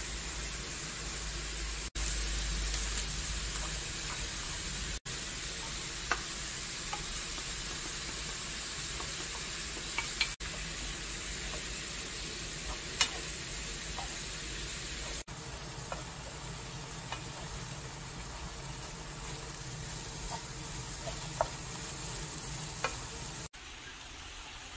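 Squid and vegetables sizzling in a frying pan as they are stir-fried with a wooden spatula, a steady frying hiss with a few sharp clicks.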